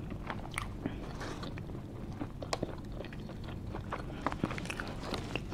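A person chewing a mouthful of cheesesteak, with scattered small mouth clicks and smacks.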